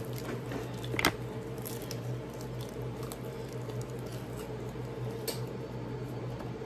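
Close-miked chewing and mouth noises of someone eating fried chicken wings fast, with small wet clicks and a sharper click about a second in and again near five seconds. A steady low hum runs underneath.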